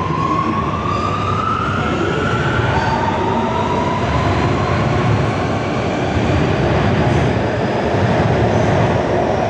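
Alstom Metropolis C751C metro train accelerating away: its traction motors whine and climb in pitch, fall back and climb again, over a steady rumble of wheels on rail.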